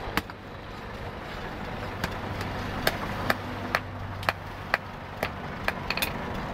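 Hammer blows on red-hot leaf-spring steel on an anvil: one sharp strike just after the start, then after a pause a steady run of blows about two a second. A steady low hum runs underneath.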